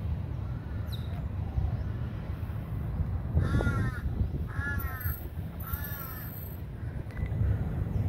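A crow cawing three times, about a second apart, over a low steady rumble.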